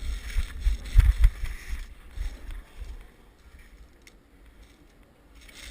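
Low thumps and rumble on a GoPro action camera's microphone, strongest in the first second and a half, then fading to faint hiss with a single sharp click about four seconds in.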